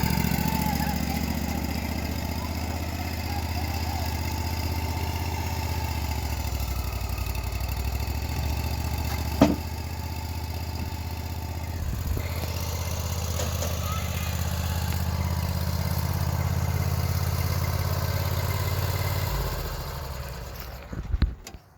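Engine of a homemade sawmill running steadily, with one sharp knock about halfway through, then shutting off near the end, followed by a couple of clicks.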